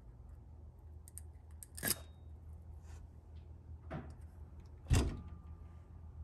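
Handling noise: a few light knocks and clicks as a cordless drill fitted with a hole saw and a cut-out wooden plug are picked up and moved about, about two, four and five seconds in, the last the loudest, over a faint steady low hum.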